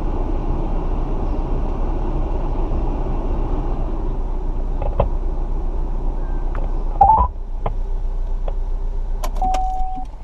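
Steady running noise of a 2013 GMC Terrain's 2.4-litre engine idling with the HVAC blower fan going. About seven seconds in there is a sharp clunk, then a few clicks and a short electronic beep near the end.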